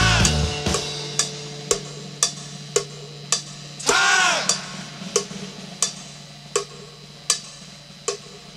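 Background rock music: a drum beat with about two sharp hits a second as a held chord fades out, and a brief swooping pitched sound about four seconds in.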